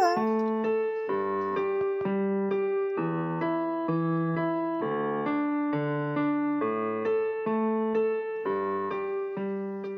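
Solo piano music: slow, held chords and single notes that change about once a second.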